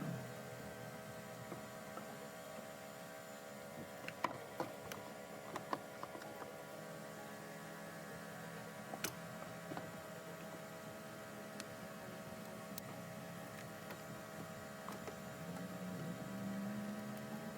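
A steady hum with a few faint clicks, and a low tone that rises slowly near the end.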